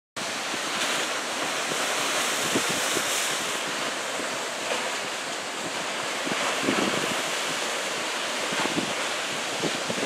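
Heavy typhoon-swell surf breaking and washing over shoreline rocks, a steady rushing hiss. Wind rumbles on the microphone at times.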